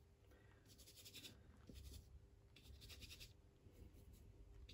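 Faint scratchy strokes of a bristle paintbrush dragging oil paint across canvas, several short sweeps about a second apart.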